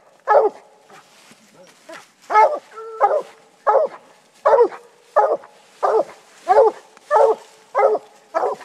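Bluetick coonhound giving its treeing bark: a steady run of loud barks, about one every 0.7 seconds after the first two seconds, the sign that it has game treed.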